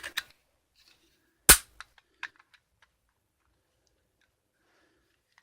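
One sharp, loud click or knock about a second and a half in, then a few faint clicks, as the pieces of a broken plastic phone mount are handled.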